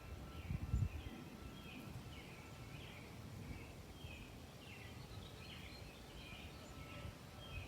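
Small birds chirping, a string of short repeated chirps over a low outdoor background hum, with a brief low rumble in the first second.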